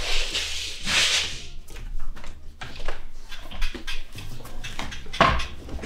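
Bedding rustling and knocks against a wooden bunk bed as someone climbs onto the top bunk, over background music with a steady bass. A louder thump about five seconds in.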